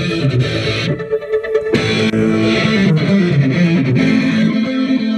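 A metal-techno track with electric guitar and bass, played loud through a car stereo's Kenwood head unit and speakers. Most of the band drops out briefly about a second in.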